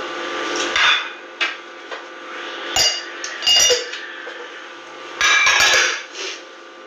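Dishes, cutlery and tea glasses clinking and knocking during a meal: a series of sharp taps with short ringing, with a longer clattering cluster a little after halfway.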